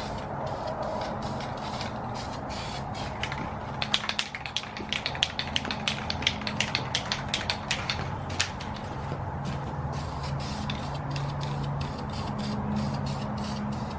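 Clear coat being sprayed onto an aluminum wheel: a steady hiss, with a run of quick sharp clicks from about four seconds in that lasts some four seconds.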